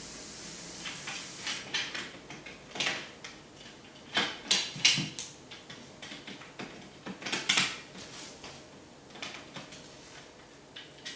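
Curtain-track carriers and belt buckles being handled and fitted into the track: scattered, irregular clicks and light knocks of small parts.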